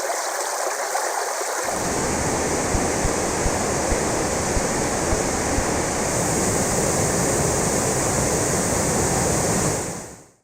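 Stream water running steadily. About a second and a half in, it changes abruptly to a fuller, deeper rush, then fades out near the end.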